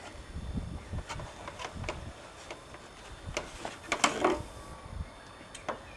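Scattered plastic clicks, knocks and rubbing as a Velossa Big Mouth intake trumpet is handled and jiggled against the car's intake opening, with a louder cluster of knocks about four seconds in.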